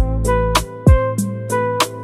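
Background music with a steady beat: a deep kick drum and sharp percussion hits under sustained chords.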